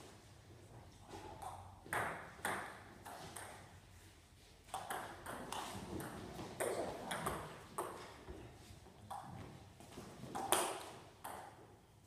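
Table tennis ball being hit back and forth in a doubles rally: a string of sharp clicks from bats striking the ball and the ball bouncing on the table, starting about two seconds in.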